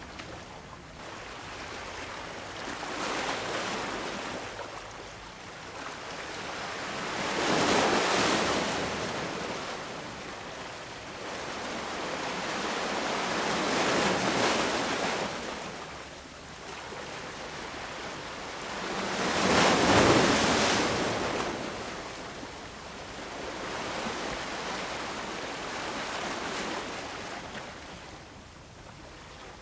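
Small waves washing against harbour rocks, each one swelling and fading in a rush of water every five or six seconds, the biggest about eight and twenty seconds in.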